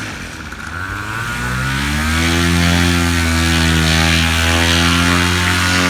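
Paramotor engine and propeller running up: the pitch dips briefly, rises over about two seconds, then holds steady at high power.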